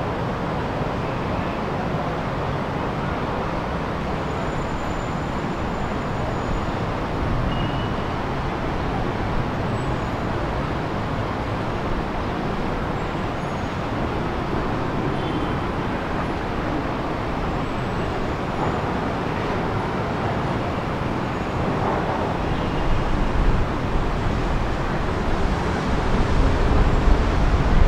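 Steady city traffic noise, a continuous wash of passing road vehicles. It grows louder, with a deeper rumble, in the last few seconds.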